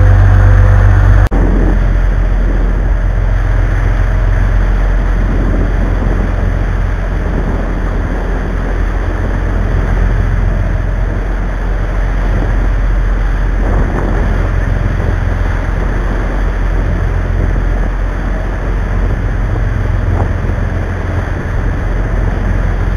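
Sportfishing boat's engines running steadily under way, a heavy low rumble with wind on the microphone. An edit about a second in changes the mix abruptly.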